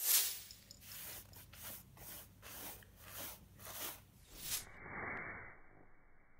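Bristle paintbrush scraping back and forth over a rough, textured surface, about two strokes a second. After about four and a half seconds the sound turns muffled, with one softer swish and then a faint hiss.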